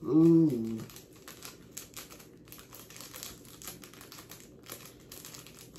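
A short hummed vocal sound from a man in the first second, then a small plastic seasoning packet crinkling in his hands, many faint irregular crackles and clicks.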